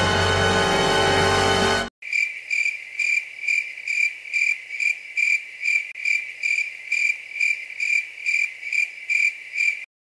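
A held music chord cuts off about two seconds in, followed by a cricket chirping sound effect: evenly spaced high chirps, about two a second, that stop shortly before the end.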